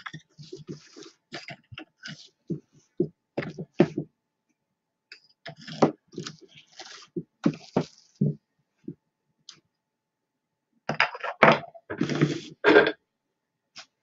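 Art batt being doffed from a Louet Classic drum carder: irregular rustling and tearing as the wool and silk fibre is pulled free of the drum's carding cloth, in clusters with a quiet pause about two-thirds of the way through.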